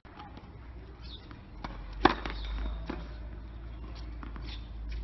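A tennis racket strikes a ball about two seconds in, a sharp crack with a short ring. Fainter ball bounces and footsteps on the hard court come before and after it, over a low steady rumble.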